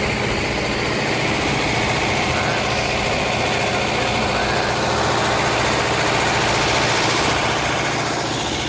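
Steady mechanical rumble and noise of the Blue Ridge Scenic Railway train, heard from aboard.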